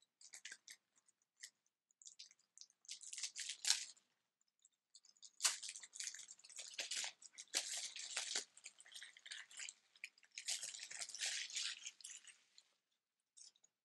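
Faint crinkling of cellophane shrink-wrap being peeled off a plastic Blu-ray case, in three stretches with short pauses between.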